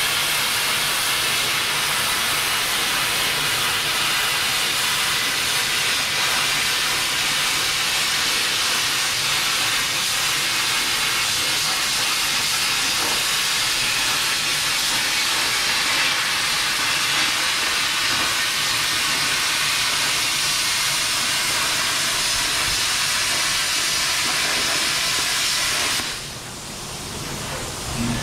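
Oxy-fuel cutting torch scarfing a steel wear edge off a loader bucket: a steady, loud hiss of the cutting jet that stops near the end.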